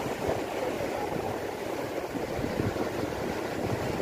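Sea surf washing and breaking against a rocky shoreline: a steady rushing noise with no clear pauses.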